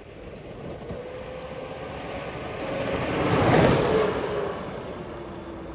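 Small ride-on toy sports car driving up and passing close by. Its tyre and motor noise swell to a peak about three and a half seconds in, with a faint whine that slides lower in pitch as it goes past, then eases off.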